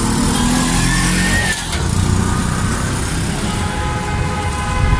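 City street traffic: motor vehicle engines running close by over a steady rumble of road noise.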